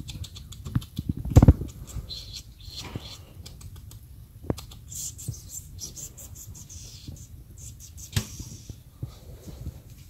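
Scattered soft clicks, crackles and rustles close to the microphone, with a louder thump about a second and a half in.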